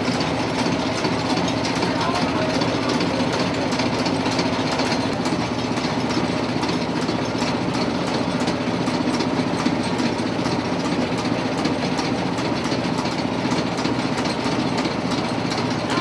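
Small upright gas engine of a 1914 Maytag washing machine running steadily, with a rapid, even clatter as it drives the washer.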